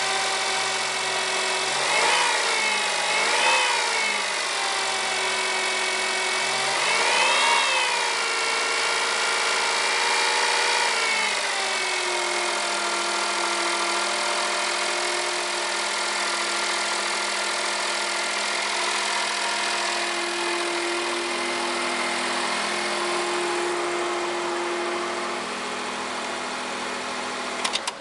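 Honda Vamos engine running with an abnormal noise from its alternator, blipped up in speed three times in the first several seconds and then left to idle steadily.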